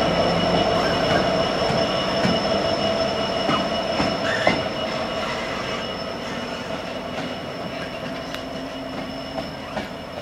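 Colas Rail Freight diesel locomotive passing close by and drawing away, its engine rumble slowly fading, with a steady high-pitched wheel squeal and a few clicks over the rail joints.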